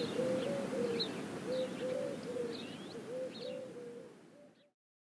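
Outdoor birdsong: a pigeon cooing in a string of short, low, arched notes, with smaller birds chirping higher above it. Everything fades out shortly before the end.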